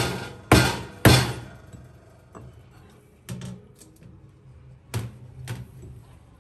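A cleaver chopping through raw grouper fillet onto a thick plastic cutting board: three hard chops about half a second apart, then a few lighter knocks, and two more chops near the end.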